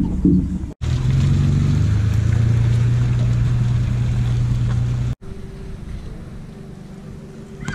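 A vehicle engine running steadily as it tows a boat on its trailer up a concrete ramp. The engine sound stops abruptly about five seconds in, leaving a quieter steady hum.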